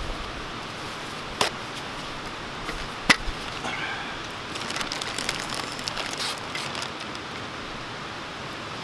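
A wood fire crackling steadily in a small box stove, with two sharp clicks about one and a half and three seconds in. From about four seconds, paper and a plastic zip bag rustle and crinkle as they are handled.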